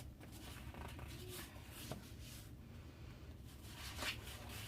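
Faint rustling and sliding of sheets of scrapbook cardstock being handled and leafed through, in short scattered strokes.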